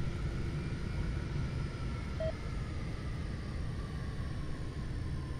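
Martinair Boeing 747-400F's Pratt & Whitney PW4000 engines at taxi power: a steady low rumble with a faint engine whine that slowly falls in pitch.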